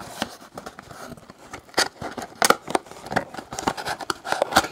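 Cardboard trading-card boxes being handled by hand: irregular scrapes and sharp clicks, several of them loud.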